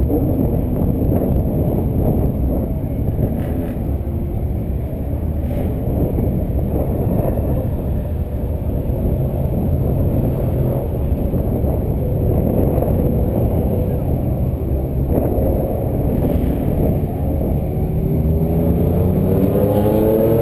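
Car engine running hard on a race track, heard from the cabin. Near the end the pitch climbs steadily as it accelerates up through the revs.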